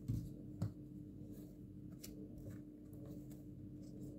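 A deck of tarot cards being handled and drawn from. There are two soft knocks near the start, then faint scattered card clicks and rustles over a steady low hum.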